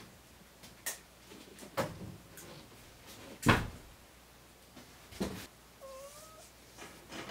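Scattered indoor knocks and clunks, the loudest a sharp thump about halfway through. About six seconds in comes a dog's short, faint, rising whimper.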